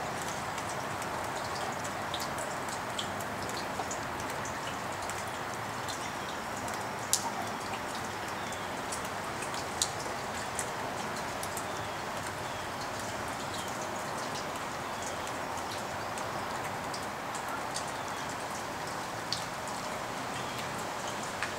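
Steady rain falling, an even hiss with scattered sharp ticks of single drops striking hard surfaces.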